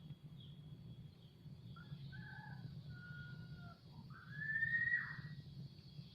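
An animal's call in several parts: a few short pitched notes, then a long, slightly rising final note that is the loudest. Faint short chirps sound high above a steady low hum.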